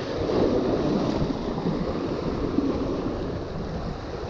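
Sea waves breaking and washing over rocks: an even rush of surf that swells about half a second in and eases a little toward the end.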